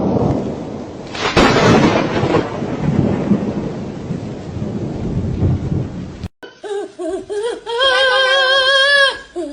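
Thunderstorm: a steady rain-like hiss with a loud peal of thunder about a second and a half in. About six seconds in it cuts off, and a held, wavering high-pitched sound follows near the end.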